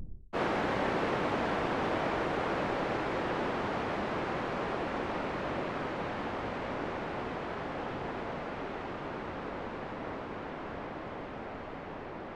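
Wind sound effect: a steady rushing noise that starts abruptly just after a short gap and slowly fades.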